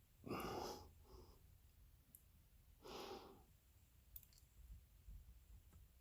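A person breathing out audibly twice, short airy exhalations about a third of a second in and again about three seconds in, with a few faint clicks near the middle, in an otherwise quiet room.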